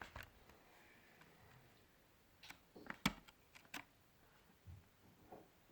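Scattered light clicks and taps of small plastic and metal laptop parts and tools being handled during disassembly, the loudest a few seconds in, over quiet room tone.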